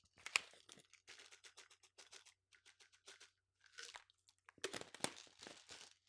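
Close-up crunching and chewing of crisp food: a quick run of crackly crunches, with louder bites just after the start and again about three-quarters of the way through.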